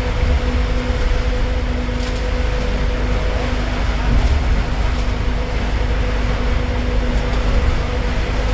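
Inside a moving city bus: the steady drone of the bus running and road noise, with a constant low hum running under it.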